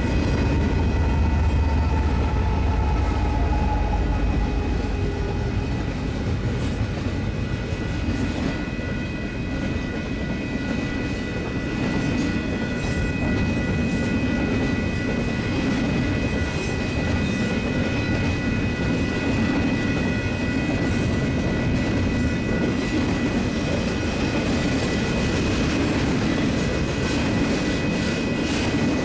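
Double-stack intermodal freight cars rolling past at speed: steady wheel-on-rail rumble with rapid clicking and clatter. The deep engine rumble of the just-passed lead locomotives, a GE ES44AC and an EMD SD70ACE, fades over the first few seconds, while a grade-crossing warning bell rings on as steady high tones.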